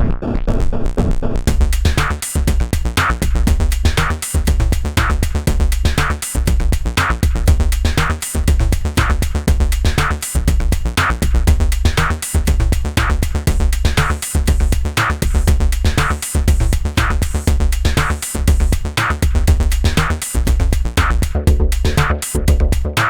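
M-Audio Venom virtual-analog synthesizer playing a performance preset: an electronic groove with a drum-machine beat over a deep bass line, a bright hit landing about once a second. The high end of the sound comes in about a second and a half in.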